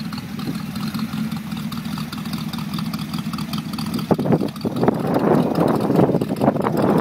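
A 1960 Ford F-100's 400 V8 engine idling steadily, growing louder about four seconds in.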